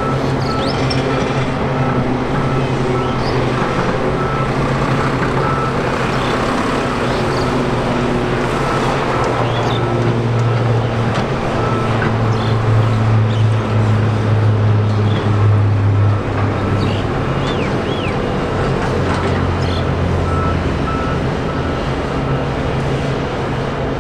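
Steady engine noise of heavy vehicles, with a deeper engine drone that swells to its loudest about halfway through and then fades. A repeating high beep sounds early on and again near the end.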